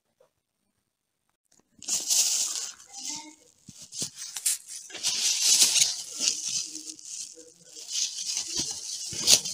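Plastic bags rustling as packed food is moved around inside a backpack, starting about two seconds in after near silence.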